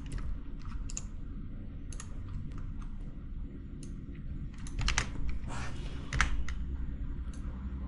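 Scattered clicks of a computer mouse and keyboard, with a cluster of clicks about five seconds in and another about six seconds in, over a low steady hum.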